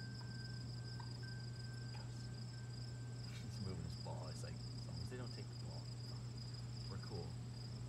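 Crickets chirring steadily in two high, unbroken trills, over a constant low hum, with a few faint short calls about halfway through and again near the end.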